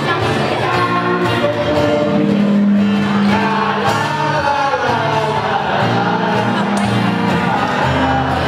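A group of men and women singing a song together from lyric sheets, accompanied by an acoustic guitar.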